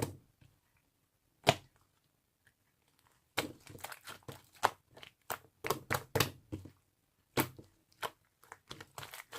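Slime being squeezed and pressed by hand, giving sharp popping clicks: a single pop about one and a half seconds in, then irregular runs of quick pops.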